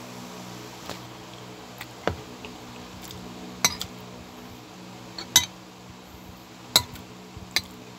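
Metal spoon and fork clinking and scraping against a ceramic plate while food is scooped up, in about half a dozen sharp, separate clinks.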